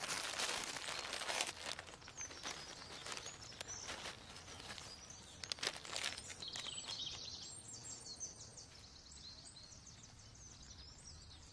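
Faint outdoor background with small birds chirping and a few sharp clicks.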